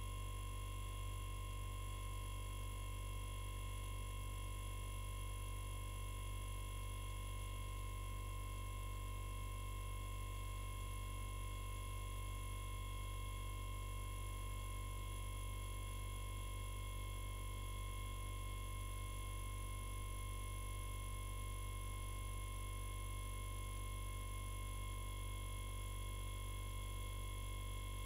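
Steady, quiet low hum with faint high steady tones, with no starting, stopping or change in it.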